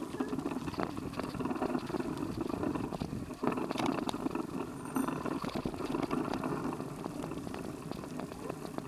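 Bicycle tyres rolling over a gravel path, with a steady run of small rattles and clicks from the bike.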